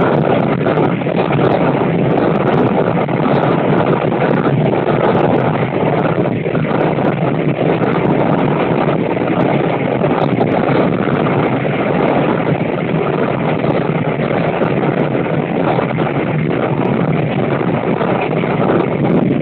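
Steady rush of wind buffeting the microphone at the open window of a moving KiHa 205 diesel railcar, with the railcar's running noise underneath.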